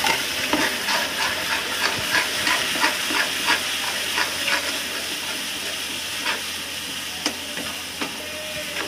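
Freshly added ground masala paste sizzling in hot oil in a kadai, with a metal spatula scraping and stirring against the pan. The sizzle slowly fades and the scrapes thin out toward the end.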